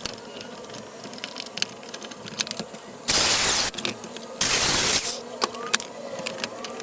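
Reciprocating saw (Sawzall) cutting through a block of stump wood in two short bursts about half a second each, starting and stopping abruptly around the middle, with scattered clicks and knocks of wood being handled before and after.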